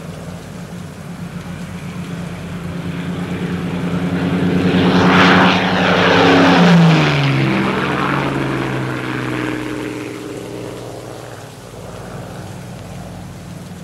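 Propeller-driven aircraft flying past. Its engine drone builds, is loudest about five to seven seconds in, drops in pitch as it passes, then fades away.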